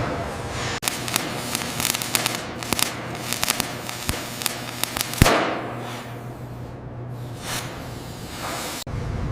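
A rapid, irregular run of sharp cracks and pops, ending in one loud bang about five seconds in that trails off in a hiss. A softer whoosh follows, and the sound cuts off abruptly near the end.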